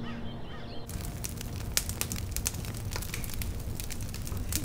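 Wood campfire crackling with many sharp pops, starting abruptly about a second in. A few bird calls are heard just before it.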